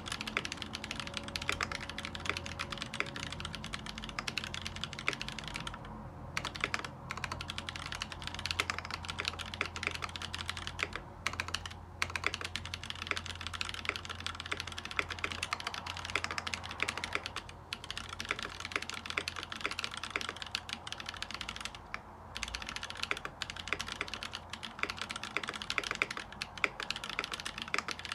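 Continuous fast typing on a custom mechanical keyboard with Drop Holy Panda tactile switches, an aluminium plate and Permatex-lubed stabilizers: a dense run of key clacks with a few short pauses.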